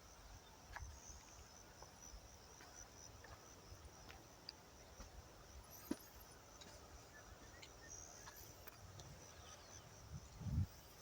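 Faint, steady high-pitched chirring of insects, with scattered light ticks and a low thump near the end.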